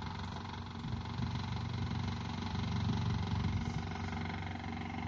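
A vehicle engine running steadily nearby, a low even hum.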